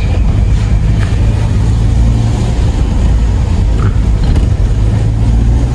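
Steady low engine and road rumble of a car driving, heard from inside the cabin.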